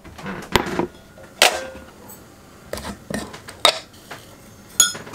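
Ceramic cups and a jar clinking and knocking on a table as a hot drink is made: about six sharp knocks, a few of them with a short ring.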